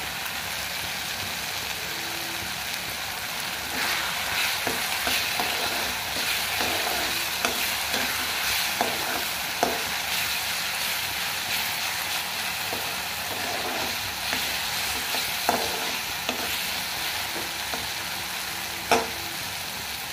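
Onion-tomato masala with green peas sizzling as it fries in oil in a kadhai, with a slotted metal spatula stirring and scraping against the pan now and then. The masala is well fried, with the oil separating from it.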